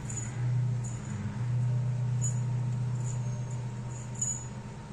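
A kitten growling low and steadily, breaking off briefly about a second in, while the small bell on a spring-mounted toy mouse jingles faintly now and then.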